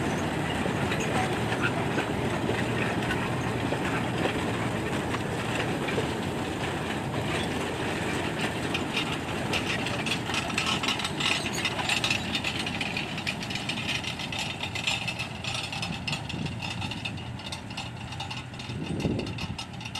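Loaded sugar-cane lorries of a narrow-gauge cane train rolling past on the track, a steady rumble with wheels clacking over the rail joints, the clacks thickest about halfway through.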